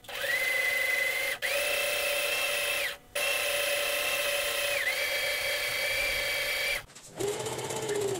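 Necchi electric sewing machine stitching fabric strips together, its motor running in long stretches with a steady whine that shifts up and down in pitch as the speed changes. It stops briefly about a second and a half in and again about three seconds in, stops near seven seconds, then makes a short, lower-pitched run at the end.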